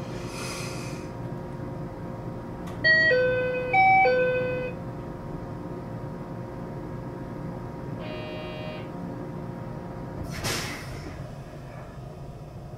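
Door-closing chime of a 521-series electric train: a two-note descending chime sounding twice about three seconds in, over the steady hum of the standing train. A short buzz comes about eight seconds in, and short bursts of hiss near the start and about ten seconds in.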